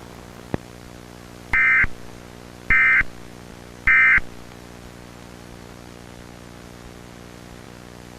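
Emergency Alert System end-of-message signal: three short bursts of the digital data tone, a little over a second apart, over a steady hum and static. It marks the end of the alert.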